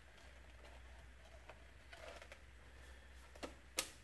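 Quiet hand-work noises from a motorcycle headlight being fitted: a few faint ticks and taps, then two sharper clicks near the end, over a low steady hum.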